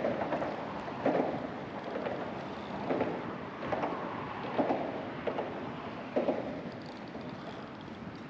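Outdoor wind and water rush with short, irregular louder bursts about once a second.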